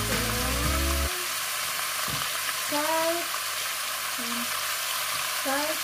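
Pork chunks frying in hot oil with browned garlic in a pot, a steady sizzling hiss.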